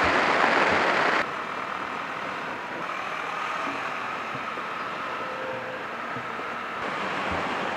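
Wind rush and engine noise of a KTM 390 Adventure riding at speed, with wind on the microphone. It is loud for about the first second, then drops suddenly to a steadier, quieter rush.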